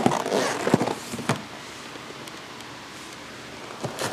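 A box and its packaging being handled: rustling and scraping with a few sharp knocks in the first second and a half, then a quieter stretch, with more rustling starting near the end.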